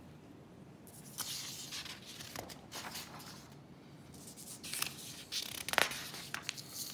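Paper rustling and sliding as a worksheet sheet is moved and turned to the next page, with irregular crackles and one sharper crackle near the end.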